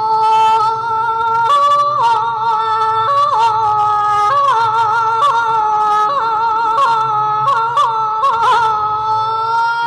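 A woman singing Thai lae, a slow ornamented chant, through a microphone, holding long high notes with quick turns and steps in pitch. Sharp percussive strikes sound at intervals under the voice.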